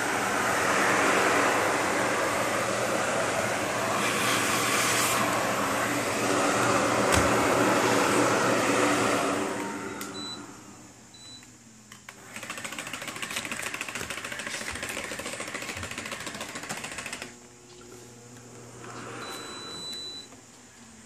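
A vacuum cleaner runs with its brush attachment on, a steady motor noise over a low hum. About nine seconds in, the motor winds down with a falling pitch, and a quieter steady whirring follows for about five seconds.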